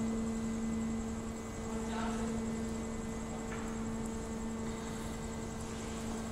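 Steady hum with a constant low pitch from the rotary wagon tippler's drive machinery running.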